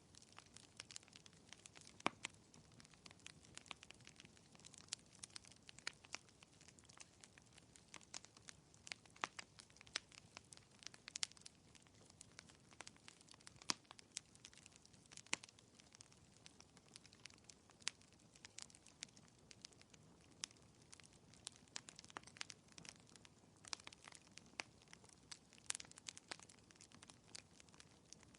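Faint fireplace crackling: wood fire giving off irregular sharp pops and snaps over a low, even hiss.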